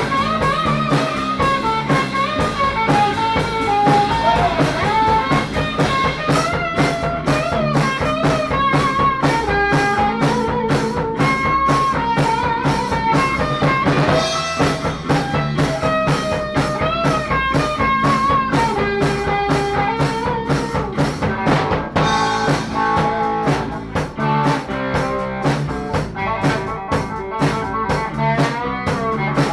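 Acoustic drum kit played to a steady beat with cymbal hits, together with guitar-led music carrying a melodic lead line.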